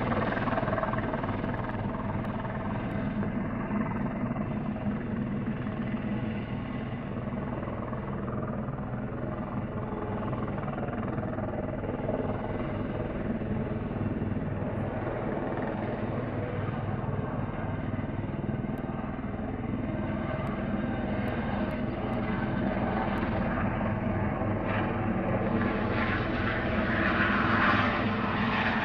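Airbus Helicopters H130 (EC130 B4) single-engine helicopter in a low hover: steady rotor and turbine noise. It swells louder and brighter near the end as the helicopter moves off into forward flight on takeoff.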